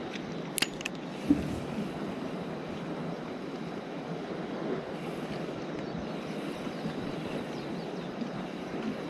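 Steady outdoor wind and harbour water noise, with a couple of light clicks and one sharper knock about a second in.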